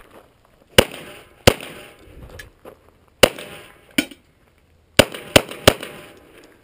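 Pistol shots fired in a stage string: about seven sharp cracks at uneven spacing, the last three in quick succession.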